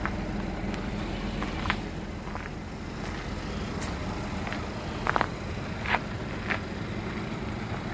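Mercedes-AMG GLE 43's 3.0-litre twin-turbo V6 idling steadily through its dual exhaust, with a few footsteps on the pavement alongside.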